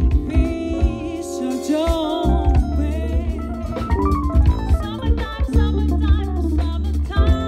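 Live soul-jazz band playing: a woman sings with vibrato over electric bass, drum kit and conga percussion.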